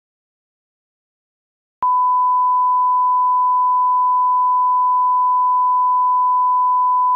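Steady 1 kHz reference test tone, one unbroken pure beep, as played with television colour bars; it starts abruptly about two seconds in.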